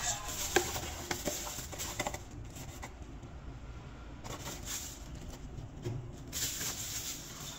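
Bubble-wrap packaging crinkling and rustling as a cardboard parts box is unwrapped, with a few sharp clicks in the first couple of seconds.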